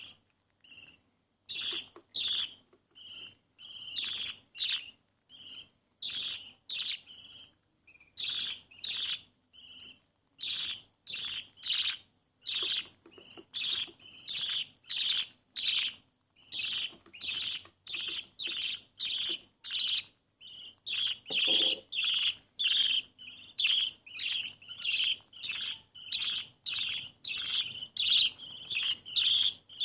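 Baby budgerigar's high-pitched food-begging cheeps, short calls repeated about twice a second with a few brief gaps.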